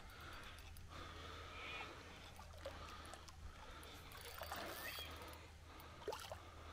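Faint sloshing and small splashes of a hooked common carp swirling at the water's surface, over a low steady hum.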